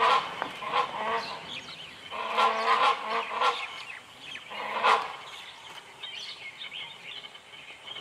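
Great hornbill calling: several bursts of loud, harsh repeated notes in the first five seconds, with smaller birds chirping faintly in the background.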